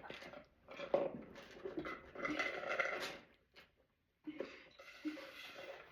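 A person burping: one drawn-out belch lasting about a second, starting about two seconds in.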